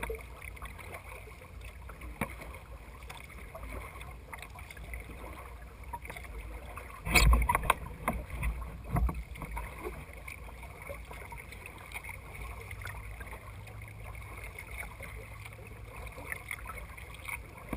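Kayak being paddled: water splashing and lapping at the hull under a steady low rumble. A short, louder thump and splash about seven seconds in, and a smaller one about two seconds later.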